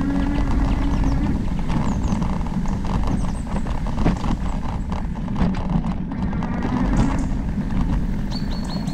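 E-bike riding along a dirt trail: a steady rush of wind on the GoPro's microphone and tyre noise, with scattered clicks and knocks as the bike rolls over bumps.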